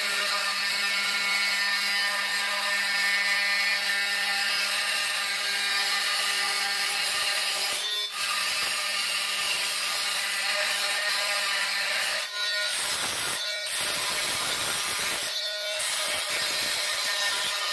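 Oscillating multi-tool with a thin diamond grout-removal blade running, grinding old grout out of the joints between floor tiles. A steady, even machine tone, briefly broken about eight seconds in and a few times in the last third.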